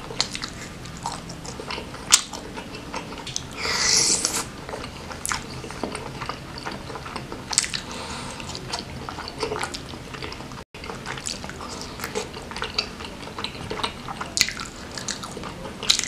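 Close-up sounds of a person eating sauce-covered chicken satay, biting the meat off bamboo skewers and chewing with wet mouth clicks. There is a short louder noisy sound about four seconds in.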